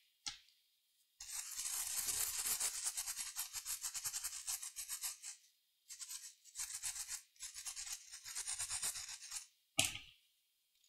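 Small brush scrubbing a MacBook Air logic board in quick back-and-forth strokes, in three runs, cleaning the board after the soldering work. A single short click near the end.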